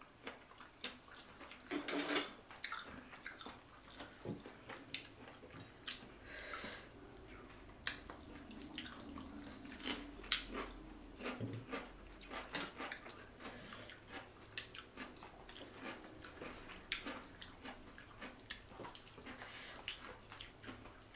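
Close-up eating sounds from a seafood boil: wet chewing and smacking, with many short irregular clicks of clam and crab shells being picked through by hand.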